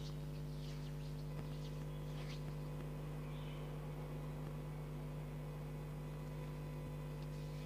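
Steady low electrical hum, like mains hum, with a few faint high squeaks in the first few seconds.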